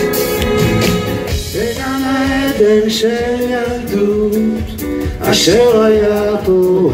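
Live band playing a song, guitars and drums, with a sung melody coming in about a second and a half in.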